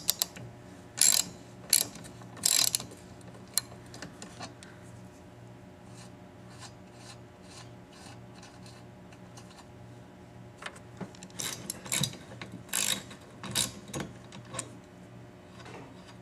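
Ratchet wrench with a 13 mm socket clicking as it loosens the nuts on a car's windshield wiper arms. Several loud clicks come in the first few seconds, then faint ticking, then another run of clicks a little past the middle.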